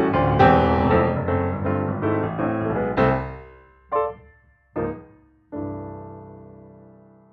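Background piano music: a run of notes that slows to a few single notes, then a final held chord that slowly fades out.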